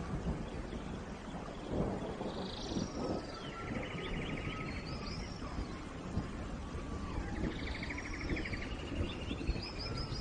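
Steady rain falling, with wild birds calling over it: two fast trills, several chirps that sweep down in pitch, and a thin whistled note.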